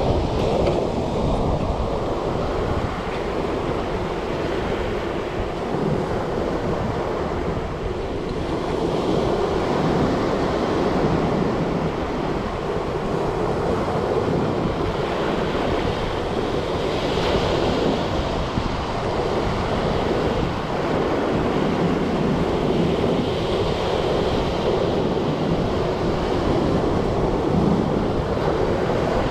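Sea waves rolling in and washing up on the shore in a continuous hiss, swelling and easing with each wave. Wind buffets the microphone with a low rumble.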